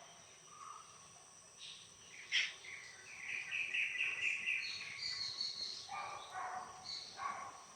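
Birds calling over a steady high insect drone, with a fast run of repeated chirps about three seconds in and a single sharp click shortly before it.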